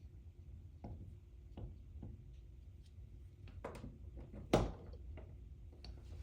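Scattered small clicks and knocks of metal doorknob and latch parts being handled and fitted on a door, with one louder clack about four and a half seconds in.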